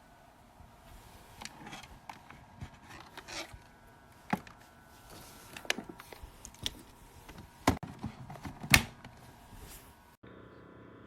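Scattered clicks and sharp knocks, several louder single knocks among them. Near the end the sound cuts off abruptly and a steady low hum takes over.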